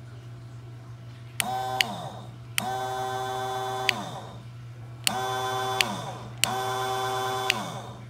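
Small 12-volt bilge pump motor, out of the water, switched on and off four times with the rocker switch: each time a click, a steady whine lasting from under a second to about a second and a half, a second click, then the whine dropping in pitch as the motor spins down.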